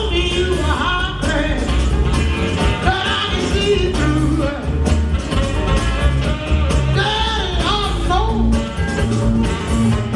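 Recorded song with a steady heavy bass beat and a singing voice over it, playing loud for a dance routine.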